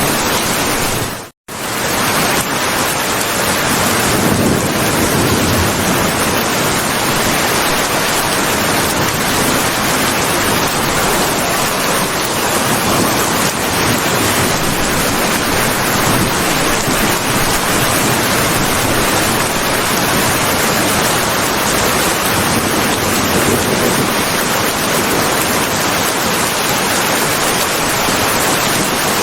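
Heavy rain falling as a steady, even hiss. About a second and a half in it cuts out to silence for an instant, then fades back in.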